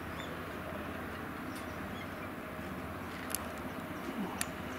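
Steady outdoor background noise with a few faint chirps early on, then two sharp snaps about a second apart near the end.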